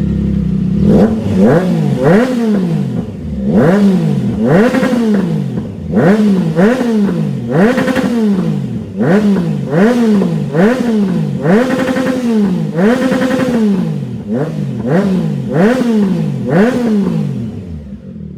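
Triumph Trident 660's inline three-cylinder engine, through an aftermarket full exhaust system with an added resonator, blipped in a long run of quick free revs. Each rev rises and falls sharply, more than one a second, before the engine drops back to idle near the end. It is bassy at idle and screams when revved.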